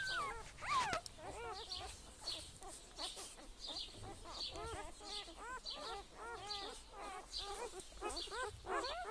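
Several small animals crying in quick succession: short cries that rise and fall in pitch, overlapping, growing busier and louder after about four seconds.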